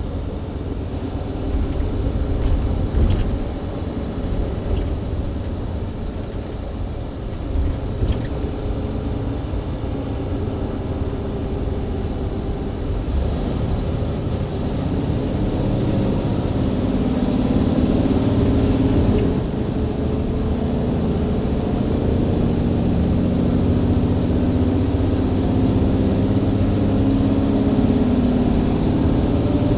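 Mercedes-Benz Citaro C2 LE hybrid bus with Voith automatic gearbox, heard from inside: the diesel engine runs at low load with some rattling, then from about halfway it goes to full-throttle kickdown. The engine note grows louder and climbs steadily in pitch as the bus accelerates.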